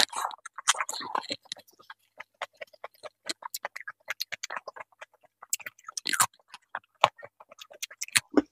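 A person eating, with a dense run of small wet crunches, crackles and mouth clicks from chewing raw cucumber and papaya salad. A louder burst comes right at the start.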